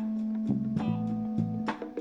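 Groovy 1970s-style background music, with plucked notes struck over a held tone and a bass line moving underneath.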